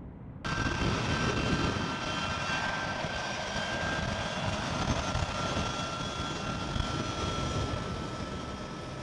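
Turbofan engines of a C-17 Globemaster III running as the jet taxis close by. The sound starts abruptly about half a second in as a loud rush with a high steady whine on top; the whine slowly drops in pitch, and the whole eases off slightly near the end.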